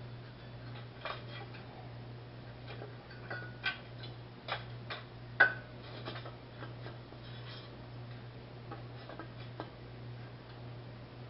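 Scattered light metallic clicks and taps as a water pump and its bolts are handled and fitted against a small-block Chevrolet engine block, the sharpest tap about five and a half seconds in. A steady low hum runs underneath.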